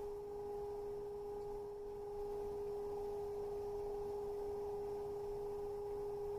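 Electric potter's wheel running at a steady speed, giving a steady whining tone with a fainter higher overtone.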